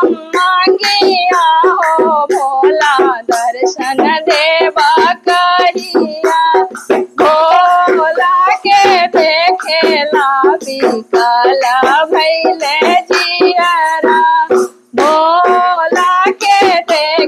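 A woman singing a devotional bhajan in a high voice, accompanied by hand strokes on a dholak barrel drum.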